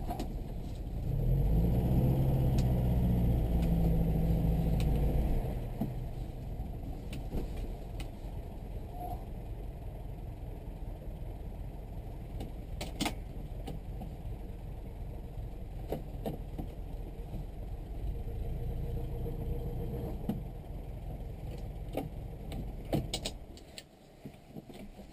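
Moskvich 408's four-cylinder engine heard from inside the cabin: it pulls harder for a few seconds, then runs quietly at low speed with a few sharp clicks, and is switched off near the end.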